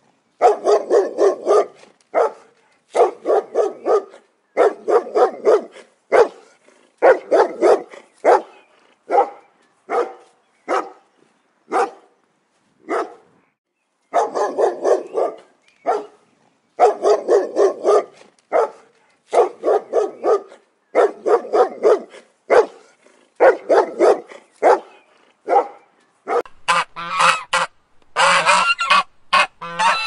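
Loud animal calls in rapid clusters, each cluster about a second long with short pauses between, and a longer pause about halfway through. Near the end the calls turn higher and run together.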